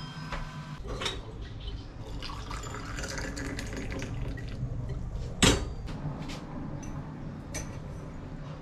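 Liquid poured from a stainless steel kettle into a glass tea glass, the pitch rising as the glass fills. A single sharp clink comes about five and a half seconds in.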